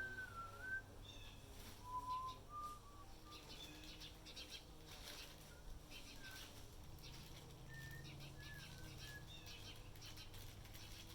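Short whistled notes that glide up and down, coming in a few scattered phrases, with soft chirps and clicks in between.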